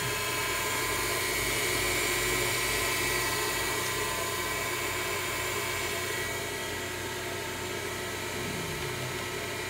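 Belt-driven spindle of a CNC-converted Grizzly G0704 benchtop mill running steadily at speed: an even machine whine with several held tones.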